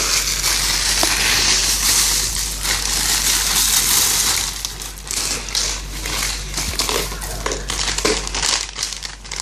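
Plastic crinkling and rustling as it is handled, with many irregular sharp crackles, loudest in the first few seconds.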